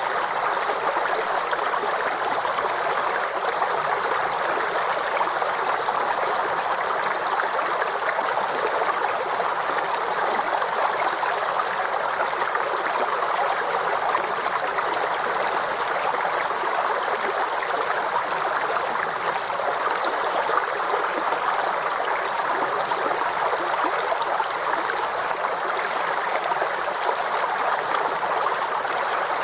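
Small forest stream flowing and trickling over stones, a steady, even babble of water.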